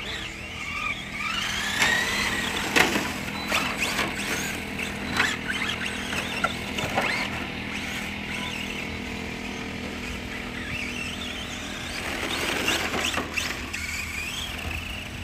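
Radio-controlled cars running on a track: a high motor whine that rises and falls as they speed up and slow down, with scattered knocks and scuffs from the tyres and chassis.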